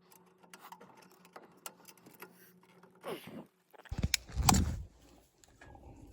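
Hands working the furnace's plastic condensate drain fittings: scattered faint clicks and scrapes, then a few louder knocks and scuffs about four seconds in as a stubborn fitting is forced.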